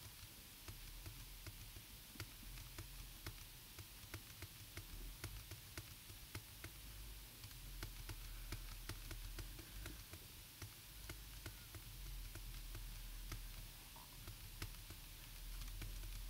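Faint, unevenly spaced clicks of a computer keyboard or mouse being worked, roughly one a second, over a low steady hum.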